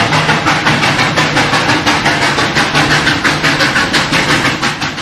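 Steam locomotive chuffing in a quick, even rhythm of puffs over a steady low rumble, as a train sound effect.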